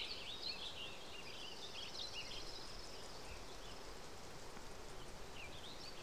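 Faint outdoor nature ambience: scattered short high-pitched chirps in the first second and again near the end, with a faint high trill in between, over a steady background hiss.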